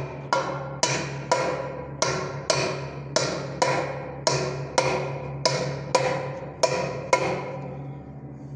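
Hammer blows on a steel drift driving a ball bearing into the bearing housing of a carpet centrifuge's door: sharp metallic strikes, each with a short ring, about two a second, stopping about seven seconds in.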